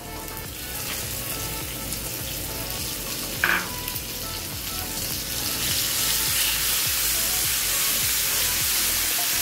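Hot oil sizzling in a nonstick frying pan as mint paste goes in on top of frying potato slices, then a spatula stirs it through. There is a brief sharp sound about three and a half seconds in, and the sizzle grows louder from about halfway through as the stirring begins.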